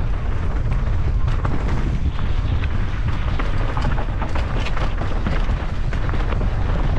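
Mountain bike riding fast down a dirt trail: wind buffeting the microphone and the tyres rumbling over the ground, with frequent sharp clicks and rattles from the bike over rough ground.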